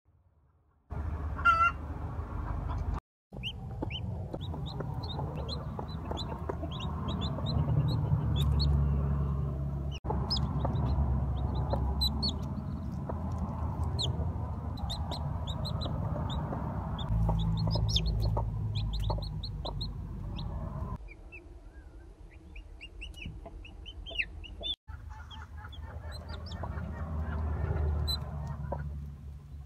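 Chicks peeping in quick, short, high cheeps, several a second, over the low clucking of brooding hens. The sound breaks off briefly twice.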